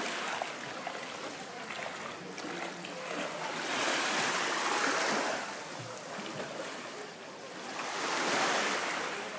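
Small sea waves washing in over the shallows of a pebbly cove, swelling twice and easing off between.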